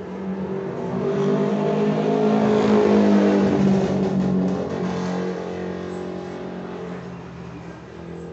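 A motor vehicle passing close by: its engine grows louder to a peak about three seconds in, then fades away.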